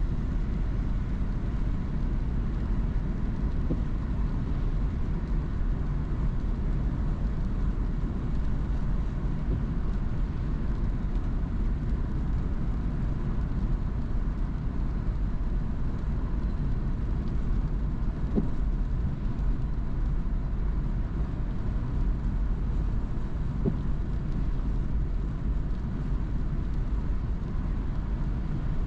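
Car driving along, with steady road and engine noise heard from inside the cabin.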